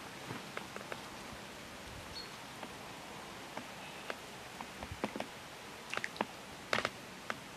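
Scattered light clicks and rustles of a float rod and reel being handled and cast, with a cluster of sharper ticks near the end, over a steady hiss.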